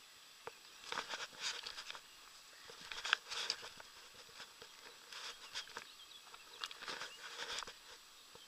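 Footsteps crunching on a pebbly gravel riverbank, coming in irregular bunches of steps.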